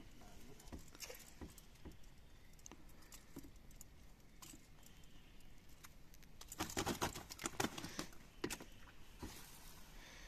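Metal clinks and rattles from fishing pliers and a fish lip grip as a hook is worked out of a grouper's mouth, with a burst of quick, louder rattling about two-thirds of the way through.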